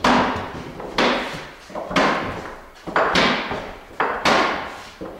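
Pegs knocked into the holes of a wooden climbing pegboard as a climber works his way down it, about one sharp knock a second, each echoing away in the large metal-walled room.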